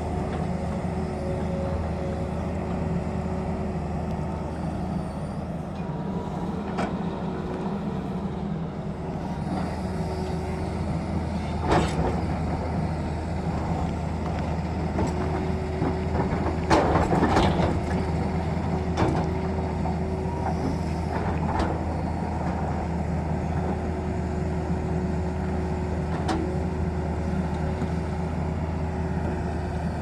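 Tata Hitachi crawler excavator's diesel engine running steadily under digging load, a low hum with a steady tone over it, as the bucket works into rock and soil. A sharp knock comes about twelve seconds in, and a louder clatter of bucket and rock follows a few seconds later, with lighter knocks after it.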